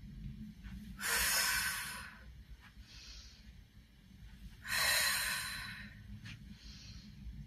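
A woman's forceful breaths out through the mouth, two sharp hissing exhales a few seconds apart, each timed to a step pushing against a resistance band, with fainter breaths in between.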